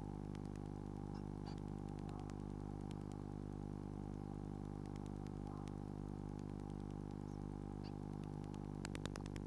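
Steady electrical hum from a nest-box camera's microphone, made of many even tones, with scattered faint clicks and a quick run of louder clicks near the end.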